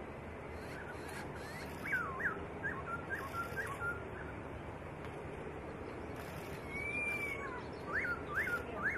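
Songbird singing loud whistled notes: a quick run of sharp up-and-down notes about two seconds in, one long arched whistle around seven seconds, then three steep rising notes near the end, over a steady background hiss.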